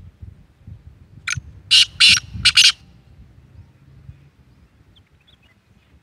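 Black francolin calling: a short first note, then three louder, strident notes in quick succession, the call heard as 'Subhan teri qudrat'.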